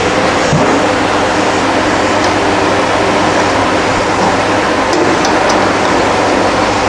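Loud, steady rushing noise with a low hum, like a fan running, with a few faint light clicks about five seconds in.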